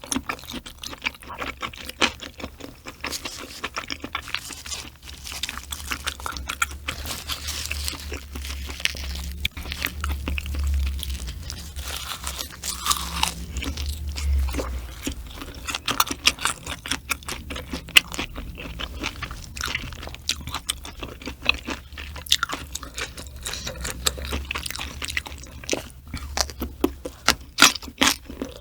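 A person chewing and crunching food close to the microphone: a dense, irregular run of wet mouth clicks and crunches, with a low rumble beneath.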